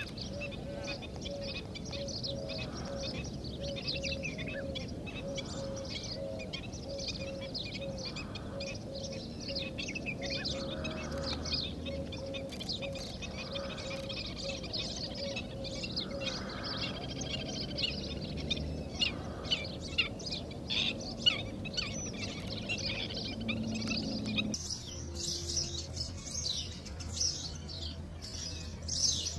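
Many small birds chirping and twittering, with a low note repeated steadily underneath. About 25 s in the background changes abruptly and the low note stops.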